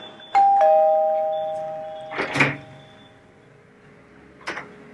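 Two-tone doorbell chime: a "ding-dong", a higher note and then a lower one, ringing on and fading over about two seconds. A short clatter follows, then a click near the end as the door is opened.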